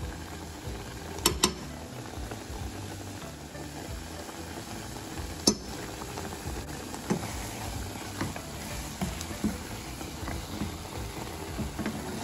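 Tomatoes simmering in a saucepan, bubbling and popping steadily. A metal spoon clicks against the pot twice about a second in and once more about five seconds in.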